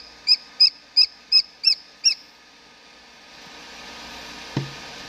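Domestic chicken chick peeping: about seven short high peeps, roughly three a second, stopping about two seconds in. A single soft knock near the end.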